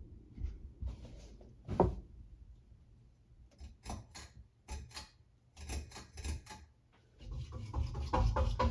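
Monte Carlo Premier ceiling fan's pull-chain switch being worked by hand: a run of sharp clicks and chain rattles, thickening into a dense clatter near the end, over the low hum of the running fan.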